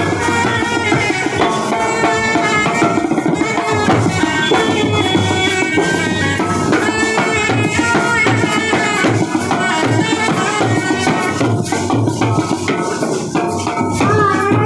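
Indian brass band playing a melody on trumpets and horns over side drums and a bass drum beating a steady rhythm. The drums come more to the fore in the last few seconds.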